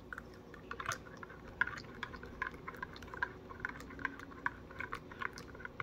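Spoon stirring coffee in a cup of hot water, clinking lightly against the cup in quick, light ticks several times a second.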